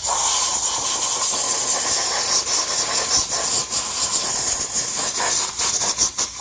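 A loud, steady hiss of a pressurized jet of air or spray, fluttering slightly, with a faint steady whistle under it.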